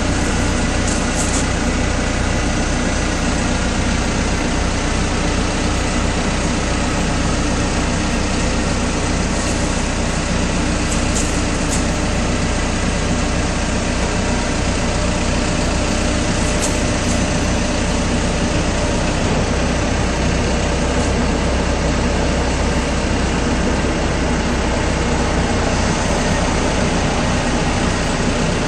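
Steady, loud drone of running machinery with a deep hum underneath, unchanging throughout.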